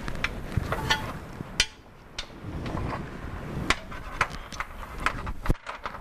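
Irregular metal clicks and knocks as a compression tester's threaded adapter hose is screwed into a spark plug hole and handled in the engine bay.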